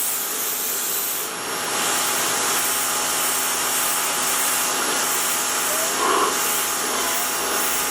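Harbor Freight Portland electric pressure washer running, its water jet spraying against a surface with a steady hissing rush and a faint steady motor whine.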